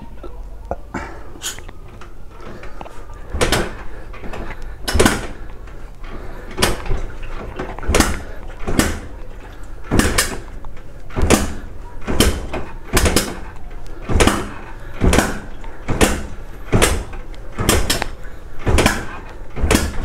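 Small motorcycle engine turned over again and again on its kickstarter with carbon cleaner in the cylinder, pumping the cleaner through the combustion chamber. It gives a sharp rush of sound roughly once or twice a second, beginning a few seconds in.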